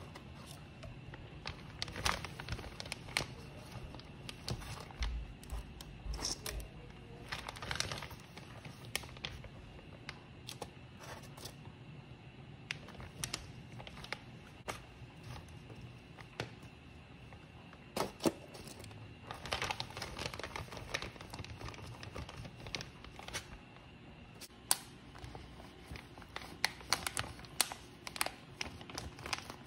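Plastic zip-top freezer bag crinkling as it is handled and filled with fried samosas, with irregular crackles and sharp clicks that come in clusters.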